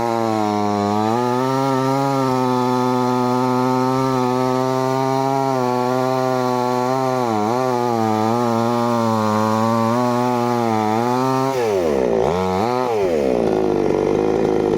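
Chainsaw engine running at high speed through a cut, its pitch dipping now and then under load. A little before the end its speed falls away sharply and picks up again twice.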